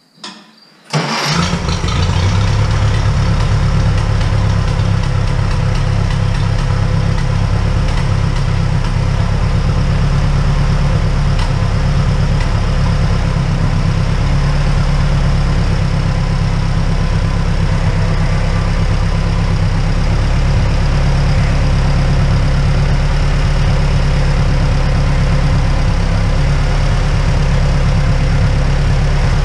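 Case tractor engine starting about a second in, then running steadily.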